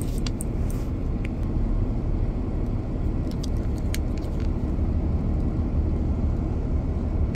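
Steady low rumble of a vehicle engine idling, heard inside the cab, with a few faint clicks of plastic coin capsules being handled.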